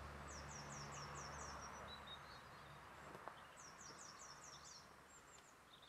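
Near-silent open-air ambience with a small bird singing faintly: a run of about six quick high notes, each falling in pitch, starting just after the beginning, and a second such run near four seconds in.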